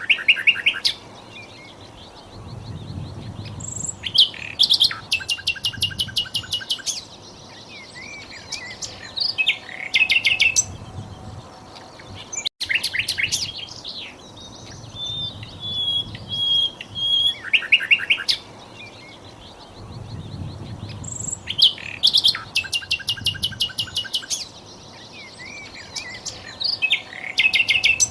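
Sikatan londo flycatcher singing: phrases of fast, evenly spaced high notes and short trills, separated by pauses of a second or so. The same song sequence repeats about every twelve seconds.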